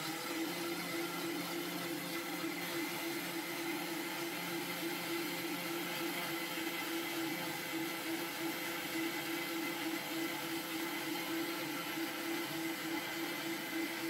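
Electric countertop blender with a glass jar running steadily, a constant motor whir, as it blends sugar into lukewarm water to dissolve it.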